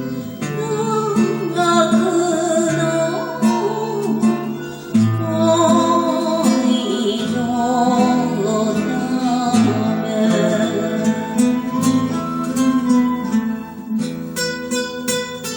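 Enka music on acoustic guitar: a wavering melody line with vibrato over plucked bass notes, with strummed chords near the end.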